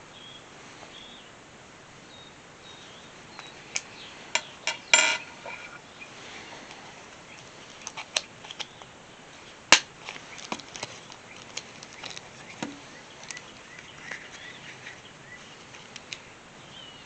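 Scattered sharp clicks and knocks of hand tools and metal hardware being handled while the hardware is fitted to a leather case. There is a small cluster of knocks about five seconds in and one louder single click near the middle, with faint bird chirps behind.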